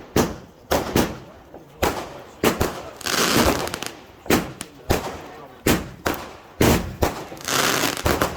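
Fireworks going off in quick succession: a string of sharp bangs about every half second, broken twice by a longer burst of crackling hiss.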